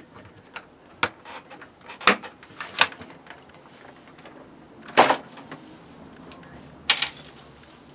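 Handling clatter of a plastic rotary-tool accessory case and its bits: five or six separate sharp clacks and knocks as a bit is picked out and the case is closed and moved off the bench.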